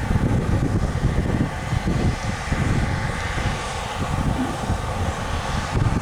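New Holland CR8.90 combine harvester running steadily while harvesting wheat, its engine and threshing machinery giving a continuous drone.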